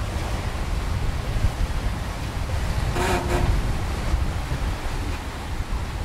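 Sea water rushing past a sailing catamaran under way, with a steady low rumble of wind, and a brief pitched sound about halfway through.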